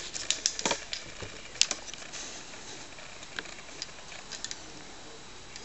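A few scattered, irregular light clicks and taps over a faint hiss, the sharpest about a second and a half in, then thinning out.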